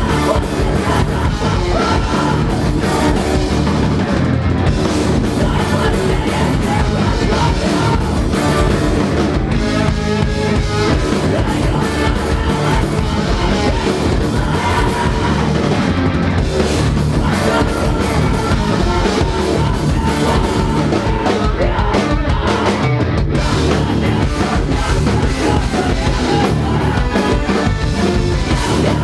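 Rock band playing live: drum kit and guitars, loud and dense without a break.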